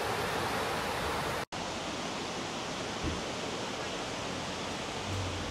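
Shallow mountain stream rushing steadily over rocks and small riffles, an even, continuous wash of water. The sound cuts out for an instant about a second and a half in, then carries on.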